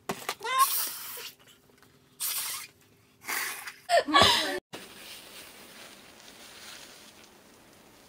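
Several short, breathy sneeze bursts from young women, with laughter about four seconds in. After an abrupt cut halfway through, only faint room tone remains.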